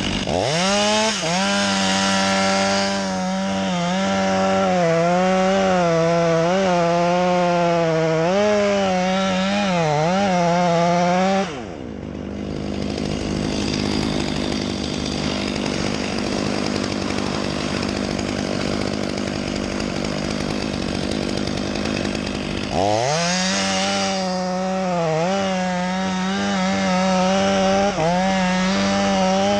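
Chainsaw revving high while cutting wood, its pitch sagging and recovering under load. About halfway through the high note drops away to a duller running noise. It climbs back to high revs for another cut near the end.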